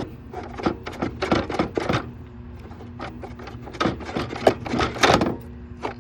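The stuck fan of a 1970s Carrier window air conditioner being worked by hand, giving irregular clicks, knocks and rubbing, with the loudest cluster near the end. Under them runs a steady low hum, the fan seized and in need of oil.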